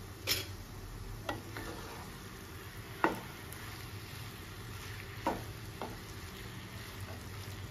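Wooden spatula stirring sabudana khichdi in a non-stick pan over a faint steady sizzle, knocking against the pan about five times, the loudest knock about three seconds in.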